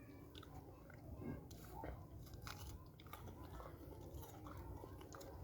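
Faint, irregular crunching and chewing of dry multani mitti (Fuller's earth clay) in the mouth.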